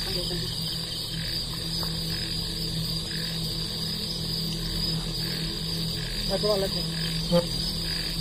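Crickets chirping steadily in the night, over a low steady hum, with a brief murmur of a voice about six and a half seconds in.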